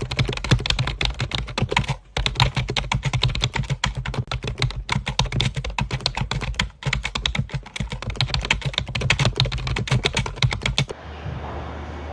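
Rapid, dense clicking and tapping, pausing briefly three times and stopping about eleven seconds in, after which only a low steady hum remains.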